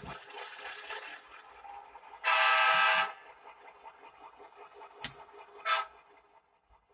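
Model diesel locomotive horn: one steady blast of under a second about two seconds in, then a sharp click and a short toot about three seconds later.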